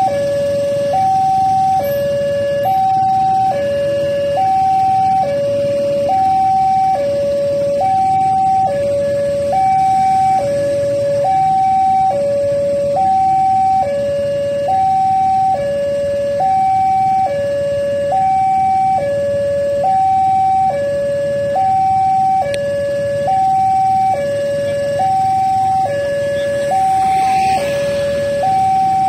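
Two-tone electronic warning signal alternating steadily between a higher and a lower note, each held about a second, at an unchanging loudness, over a low steady rumble.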